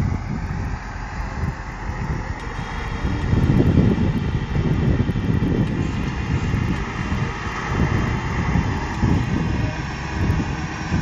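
Diesel engine of a loaded MAN logging truck running under load as the truck pulls slowly across, a low rumble that swells from about three seconds in.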